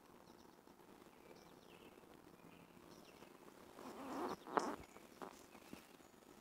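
Quiet outdoor ambience with faint, scattered bird chirps; a little past halfway, a brief rustle swells and ends in a sharp click, followed by a couple of softer clicks.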